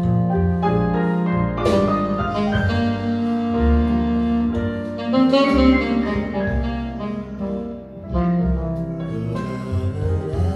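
Instrumental break of a slow Mandarin pop ballad, with no singing, played through a hi-fi stereo system: a Perreaux SA35 preamp and 2370 power amplifier driving Qinsound loudspeakers.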